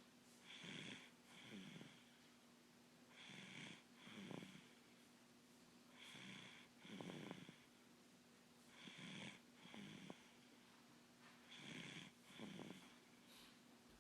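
Soft snoring from a sleeper, about one breath every three seconds, each breath in two parts, with a faint steady hum beneath.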